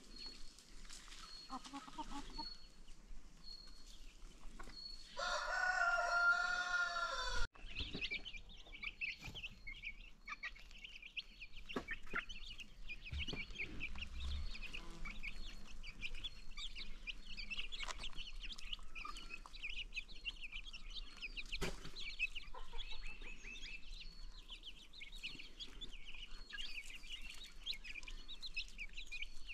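A flock of baby chicks peeping constantly in dense, high chirps. About five seconds in, a loud, wavering two-second call from an adult chicken stands out and breaks off abruptly.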